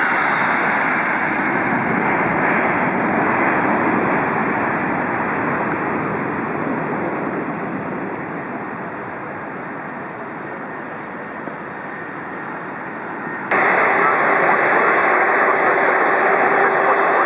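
Jet airliner engine noise, a steady rush that fades over about ten seconds as the aircraft moves off, then cuts suddenly to another loud jet engine noise about 13 seconds in.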